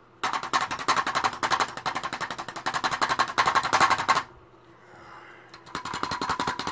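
Rapid rattling clatter of a paintbrush being worked hard against a container or the easel to clean it, about ten raps a second for about four seconds, then again briefly near the end.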